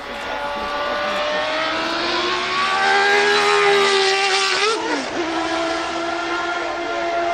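Historic Formula One car's engine flying past at speed. It rises in pitch and grows louder as it approaches, is loudest about four and a half seconds in, then drops suddenly in pitch as it passes and runs on steadily.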